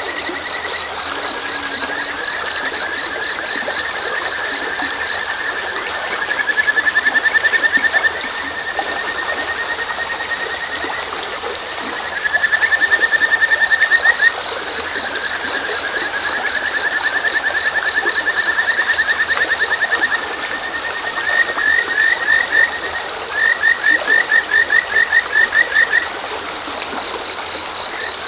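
Kajika frogs (Buergeria buergeri) calling in long, fast-pulsed trills, one after another, with a string of separate, more spaced notes near the end. Under them runs the steady rush of a shallow stream, with a faint high cricket chirping.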